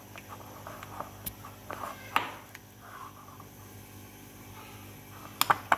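A metal spoon mixing a thick mashed-potato mixture in a bowl: soft squishing and scraping, with a few sharp clicks of the spoon against the bowl, the loudest pair near the end.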